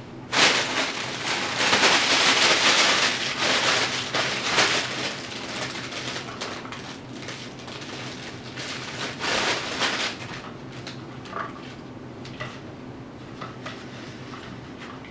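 Thin plastic garbage-bag sheeting and a fabric play tunnel crinkling and rustling as a puppy pushes through and drags them on a tile floor. The noise starts suddenly about half a second in, is loudest for the first few seconds, surges again around nine to ten seconds, then dies down to a few scattered light clicks.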